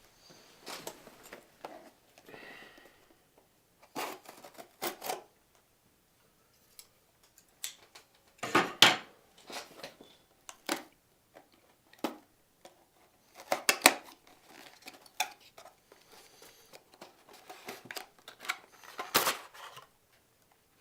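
Scissors cutting open packaging, heard as irregular snips, clicks and rustles, with a few louder sharp strokes spread through.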